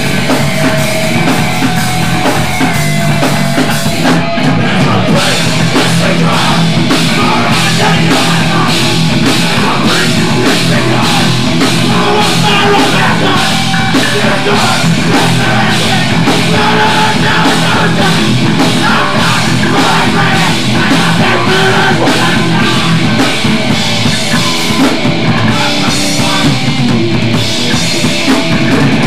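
Hardcore punk band playing live: loud distorted guitars, bass and fast, driving drums.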